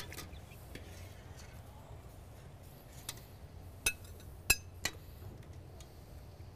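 Metal serving spoon clinking against a steel pot and plates while pasta is dished up: four sharp clinks in the second half, the loudest ringing briefly.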